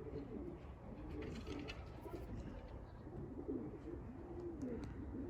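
Racing pigeons cooing, a run of low coos one after another.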